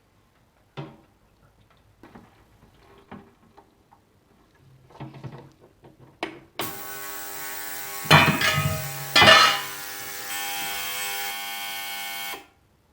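Tool clicks and taps on engine casing bolts while the covers are refitted, then a steady motorised whir with a hiss for about six seconds, surging twice and cutting off sharply near the end.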